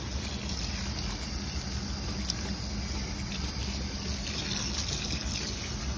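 Kitchen faucet running steadily into a stainless steel sink, the stream splashing onto a wet mesh jumpsuit that is being rinsed of fabric dye.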